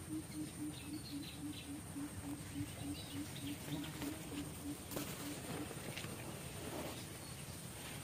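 Forest ambience: a low-pitched animal call pulsing evenly about four times a second, stopping after some six seconds, over a steady high insect whine and scattered bird chirps.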